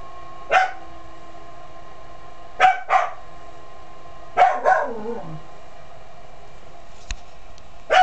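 A dog barking: a single bark, then two quick pairs of barks, the last of them trailing off, with one more bark near the end. Underneath runs the steady multi-tone hum of a Lennox SLP98V gas furnace's fan, running while the burner waits to light.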